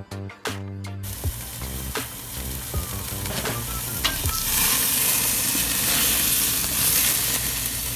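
Background music for about the first second, then a ribeye roast sizzling over glowing charcoal in a barrel grill, with a few clicks of metal tongs. The sizzle grows louder from about four seconds in as the fire flares up around the meat.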